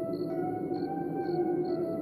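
Eerie ambient horror background music: a dense low drone under held tones that shift pitch slowly, with a quick high pip repeating about four times a second.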